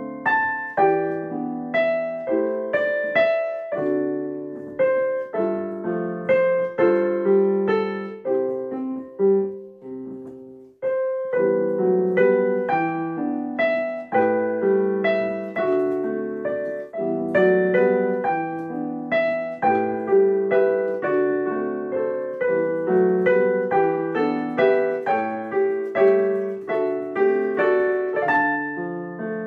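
Solo piano playing a piece at an even pace, single notes over low chords, each note struck and left to ring. About nine seconds in the notes die away, and the playing resumes with a sharp attack roughly two seconds later.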